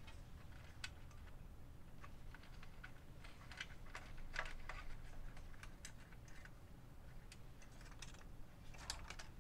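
Faint, scattered clicks and taps of plastic connectors and cable plugs being handled and pushed home inside an opened video recorder, with a small cluster of clicks in the middle and another near the end.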